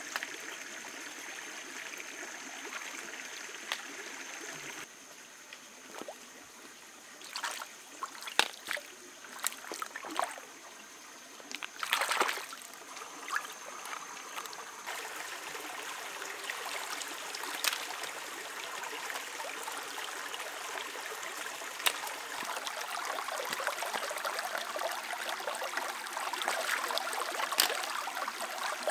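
Shallow stream trickling over rocks, with hands splashing in the water as stream snails are picked off the bottom; a cluster of sharp splashes and clicks comes in the middle, then a few single clicks. A faint steady high tone sounds through the first half.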